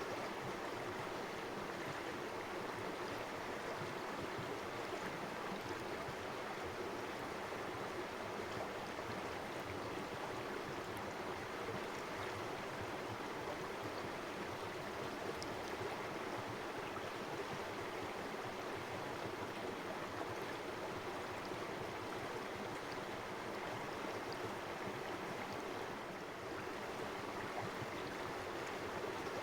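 Shallow river water flowing and splashing steadily over stones, a constant babbling rush with small droplet splashes.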